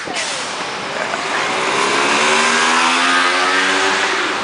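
A motor vehicle's engine accelerating nearby, its note rising gradually from about a second in, over a steady rush of street noise.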